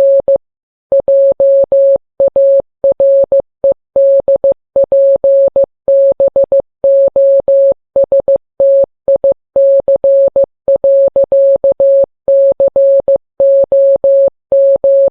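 Computer-generated Morse code: a single steady mid-pitched beep keyed on and off in short dots and longer dashes with even gaps between letters and words, spelling out a text message.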